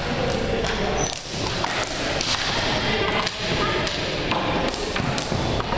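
Floor hockey warm-up: sticks striking shots and the shots thudding off the gym floor and walls, a scatter of irregular clacks and thuds.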